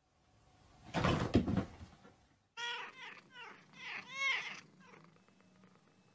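A flat-faced, long-haired Persian-type cat meowing in a quick run of five or six short, arching meows. They come about two and a half seconds in, after a second-long burst of rough noise about a second in.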